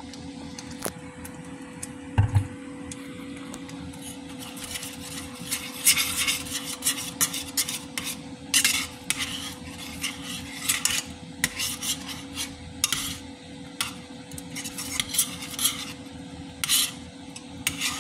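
Metal spoon stirring thick peanut kare-kare sauce and oxtail in a stainless steel pot, scraping and clinking against the pot, in irregular strokes that come thicker from about four seconds in. A heavier knock about two seconds in.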